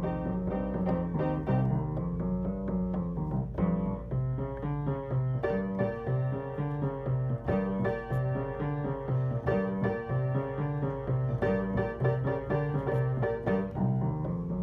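Background piano music with a steady rhythm and a repeating bass line.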